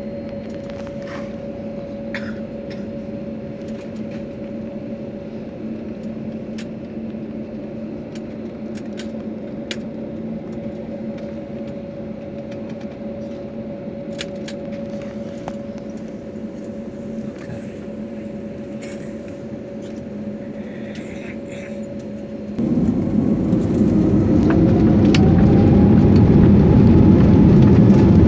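Airbus A320 jet engines heard from inside the cabin: a steady hum with two held tones and light rattles while taxiing, then about 23 seconds in the engines spool up to takeoff thrust. The sound jumps louder and a whine rises steadily as the takeoff roll begins.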